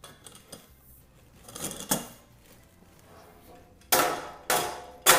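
Sheet-steel panels of an IKEA Hällan metal cabinet clanking and rattling as they are worked together, then three sharp metallic bangs near the end as a part is knocked to seat it and make it click into place.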